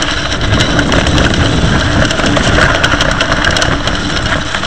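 Mountain bike riding fast over a rough trail: a continuous rumble and rattle, with frequent sharp knocks and clicks as the wheels hit stones and roots.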